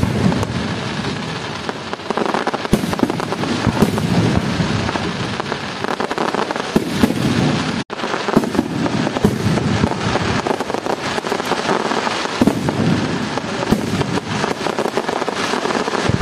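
Aerial fireworks display: a continuous crackle of bursting shells and crackling stars, with frequent sharp bangs. A split-second gap about halfway through marks a cut in the recording.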